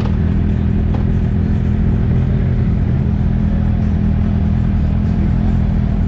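Steady low rumble of a running motor vehicle, even in level with no changes.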